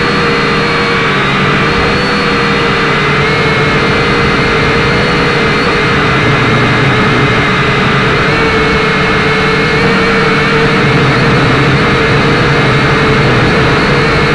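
Syma X5C-1 quadcopter's small brushed motors and propellers whining steadily, loud and close as heard by its own onboard camera, the pitch wavering slightly as the motors change speed.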